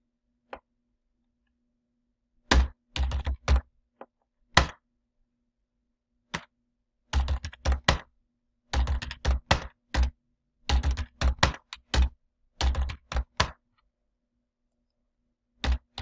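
Computer keyboard typing in short bursts of a few quick keystrokes each, with pauses between the bursts, as numbers are entered. A lone click comes about half a second in.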